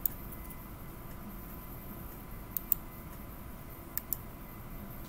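Computer mouse button double-clicking three times: once at the start, once about two and a half seconds in, and once about four seconds in. Each is a quick pair of sharp clicks over a steady background hiss with a faint high tone.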